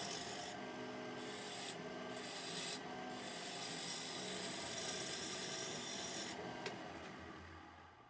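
Sandpaper held by hand against the face of a red oak blank spinning on a wood lathe: a steady rasping hiss over the lathe motor's faint hum. The sound fades out over the last second or so.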